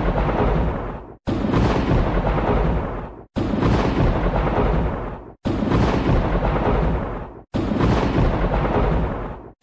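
A loud, rumbling crash of noise, repeated as a loop about every two seconds. Each repeat starts suddenly, fades, and is cut off by a brief silence.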